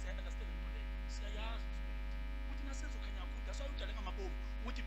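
Steady low electrical mains hum, with faint voices murmuring over it.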